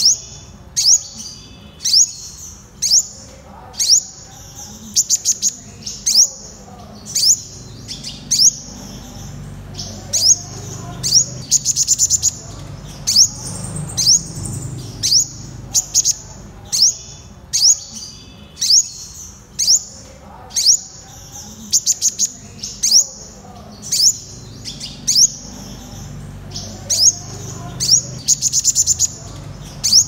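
Purple sunbird calling: sharp, high single notes repeated about once a second, broken now and then by a short rapid trill of several quick notes.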